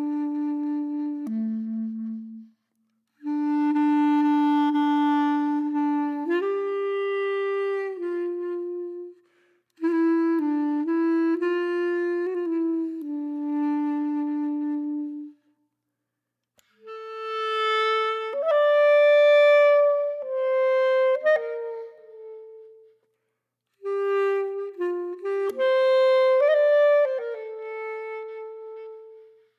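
Background music: a solo woodwind, clarinet-like, playing a slow melody in phrases separated by short pauses.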